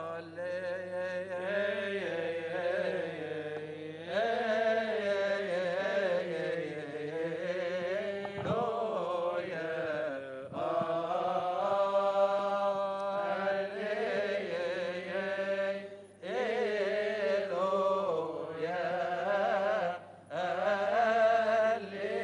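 Coptic Orthodox liturgical chant: male voice singing a slow, melismatic hymn, with long held notes that waver and glide in pitch. It breaks off briefly for breaths twice in the latter half.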